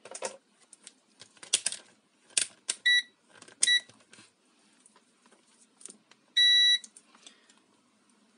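Digital multimeter beeping: two short beeps about three seconds in and a longer beep about six and a half seconds in, as it is readied to test the blender's on/off switch. Clicks and rattles of handling come before the beeps.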